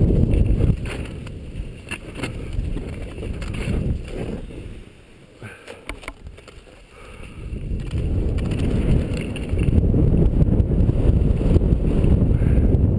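Wind buffeting a skier's camera microphone, mixed with skis scraping over snow on a downhill run; the rush drops away for a couple of seconds near the middle and then builds again.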